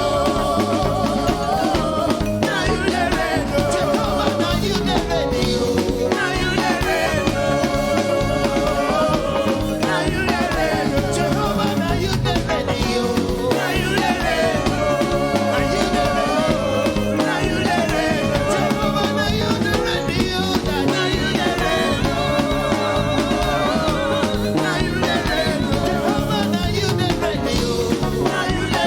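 Live church worship band playing an upbeat praise song with a steady rhythm, with singing.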